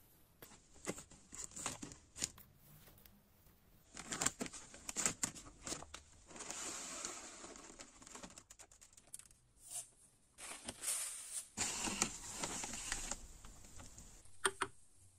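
Thin plastic bags of caustic soda beads and powder crinkling and rustling as they are opened and handled, while a metal spoon scoops from them. Irregular crackly rustles come in spells, with scattered small clicks.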